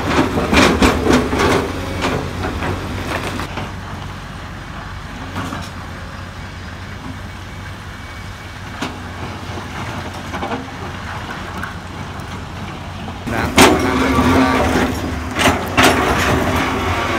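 Loaded dump truck's diesel engine running as it drives off, with clanks and rattles from the truck, then a quieter stretch of distant engine noise. About 13 seconds in, an excavator's engine comes in louder under load, its steel bucket scraping and knocking against broken rock.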